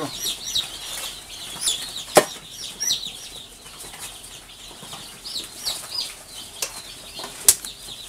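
A boxful of day-old chicks peeping: many short, high cheeps overlapping throughout. Two sharp knocks stand out, one about two seconds in and one near the end.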